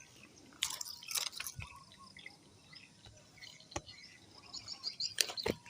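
Small water splashes and dripping mixed with scattered clicks, in two short clusters, about half a second in and again near the end.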